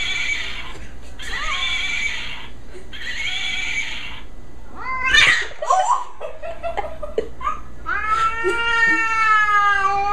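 Domestic cat yowling: a few short harsh calls, then a long drawn-out yowl from about eight seconds in.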